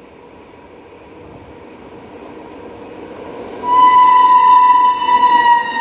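WAP-7 electric locomotive approaching at speed, its running noise building steadily, then sounding its horn loudly about two-thirds of the way in: one held note that sags slightly in pitch as it draws near.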